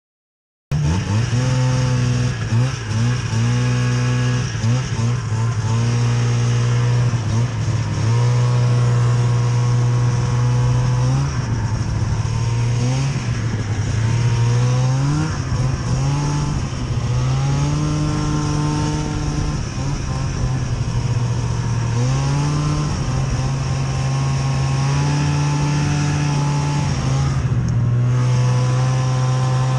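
Two-stroke snowmobile engine under way, its pitch rising and falling again and again as the throttle is opened and eased. The sound cuts in abruptly under a second in.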